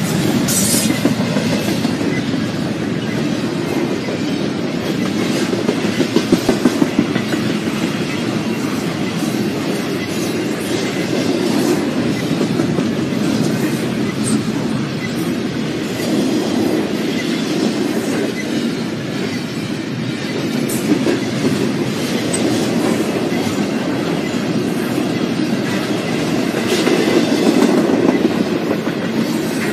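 Double-stack intermodal container freight cars rolling past close by, with a steady rumble and clatter of steel wheels on the rails. A quick run of louder clacks comes about six seconds in, and the noise swells again near the end.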